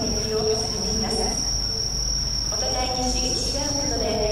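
Crickets trilling in one steady high note, with people talking in the background.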